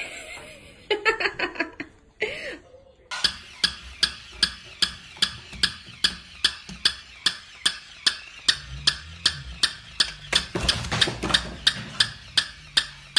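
Battery-operated walking toy dog stepping across a hard floor, its mechanism clicking evenly about two and a half to three times a second.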